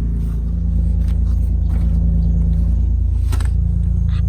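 Motor vehicle engine running steadily while driving, with a low rumble; the engine note shifts slightly about half a second in.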